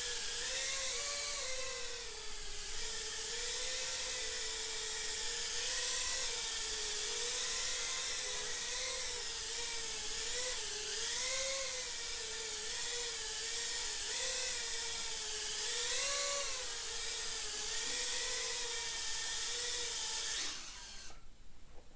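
Tiny whoop drone's four Happymodel SE0802 19000KV brushless motors and props whining, the pitch wavering up and down continually with throttle. The whine cuts off near the end.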